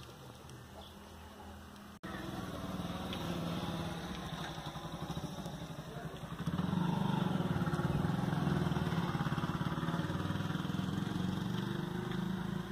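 An engine running with a steady fast pulse, coming in suddenly about two seconds in and growing louder just past the middle.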